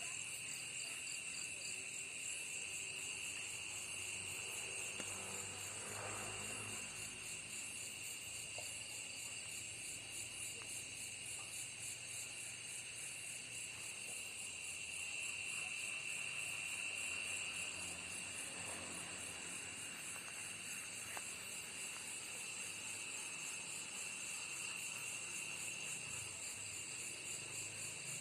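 A chorus of insects: several steady, high-pitched trills and buzzes layered together, one of them swelling louder about halfway through. This is the strange sound being checked in the garden. Faint rustles come twice, about six seconds in and again past the middle.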